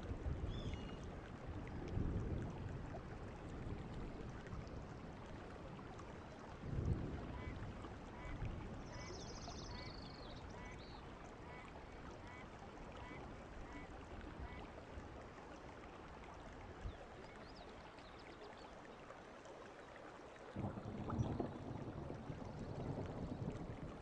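Wind buffeting the microphone in gusts, strongest about two seconds in, about seven seconds in, and again near the end. In the middle a faint call repeats about twice a second for several seconds.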